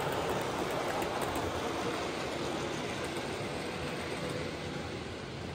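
00 gauge model goods train running on the layout track, a steady rumble of wheels and motor that slowly fades as the wagons move away.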